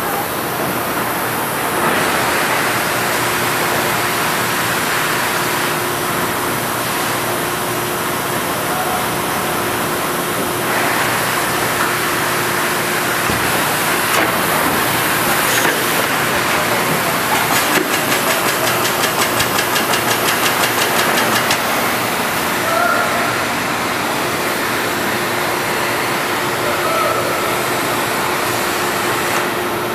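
Industrial machinery running: a steady mechanical hum with a hiss, and a few seconds of fast, even pulsing a little past the middle.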